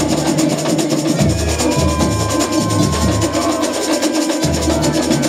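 Carnival samba drum section (batería) playing: deep bass drums beating in a repeating pattern under a fast, dense rhythm of snare drums and small percussion.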